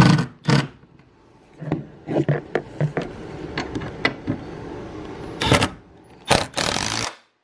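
Irregular metallic clicks and knocks of a tool on the 14 mm rear bolts of a seat rail as they are run down tight, with two louder rasping bursts near the end.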